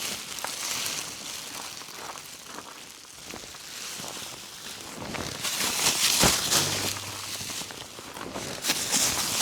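Footsteps and rustling, with a few sharp knocks, the loudest about six seconds in.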